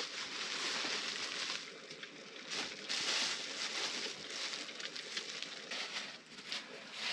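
Cooking fire in an earthen stove, an uneven hiss with scattered small crackles.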